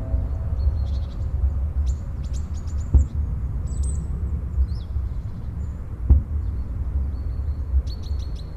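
Small birds chirping and twittering in scattered bursts over a steady low rumble, with two dull thumps about three seconds apart.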